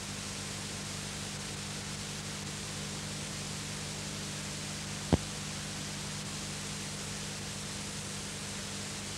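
Steady hiss with a low, even hum from an old videotape recording's soundtrack, and no clear game or crowd sound. About five seconds in comes one sharp pop.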